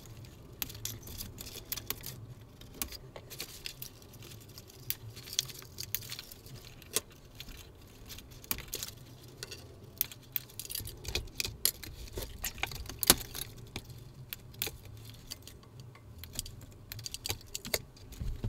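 Hands pulling out bundles of hookup wire and unplugging connectors and circuit boards: irregular small clicks, taps and rattles of wire and plastic, over a faint low hum.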